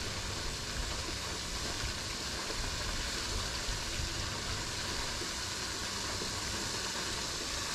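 Wind buffeting the microphone in a low, uneven rumble over a steady, even hiss.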